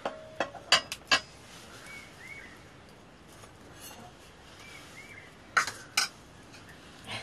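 Metal cooking utensils clinking against pots and a plate: a few sharp clinks about a second in, and two more near six seconds.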